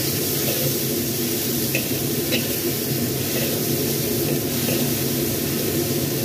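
Sliced green tomatoes and chilies sizzling in hot oil in a wok while a metal spatula stirs them, with a steady hiss and a couple of small scraping clicks about two seconds in.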